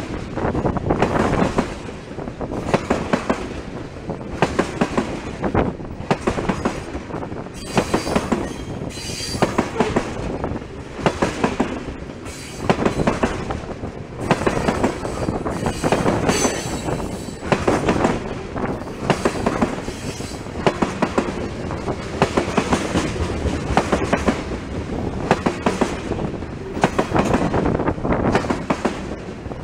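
Loaded ethanol tank cars of a freight train rolling past close by, their wheels clicking and knocking over the rail joints in a steady repeating rhythm. A faint high wheel squeal comes in briefly twice.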